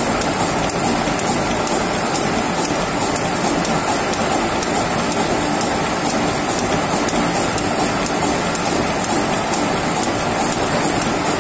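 Gear-cutting machine running, its toothed cutter cutting teeth into a steel gear blank: a steady mechanical clatter with a regular light ticking.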